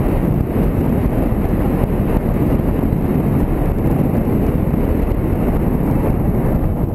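Steady rumble of a motorcycle ride: wind buffeting the bike-mounted camera's microphone over the motorcycle's running engine, with no change in pace.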